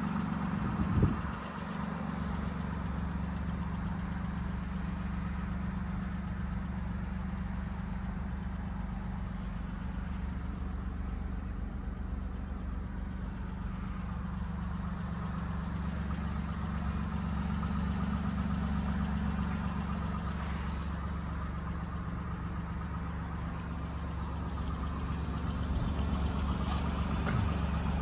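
Alfa Romeo Stelvio Quadrifoglio's 2.9-litre twin-turbo V6 idling steadily, heard from the cabin with the door open, with a brief knock about a second in.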